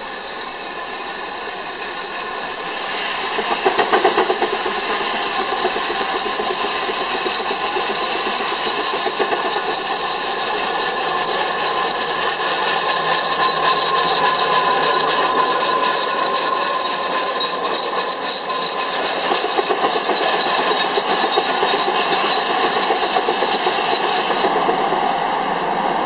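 Steam-powered circular sawmill, driven by a belted steam traction engine, cutting a log: a loud hiss and steady high whine of the blade in the wood that swells about two and a half seconds in and eases off near the end.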